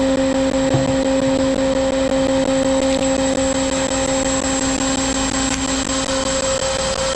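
CNC router spindle running steadily while it machines 1/8-inch polycarbonate sheet, giving a steady whine over a noisy rush. Its lower tone drops away near the end.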